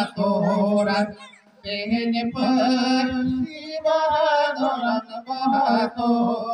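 Men singing a chant-like song without instruments into microphones, amplified through a public-address system, in long held notes with a short break about a second in.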